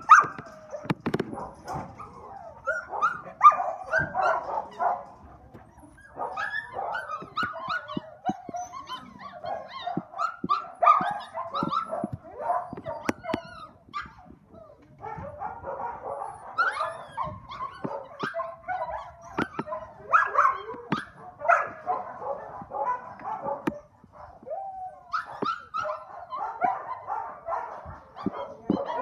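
A litter of Samoyed puppies yipping, whining and barking, many short high-pitched calls overlapping one another, with a few brief lulls.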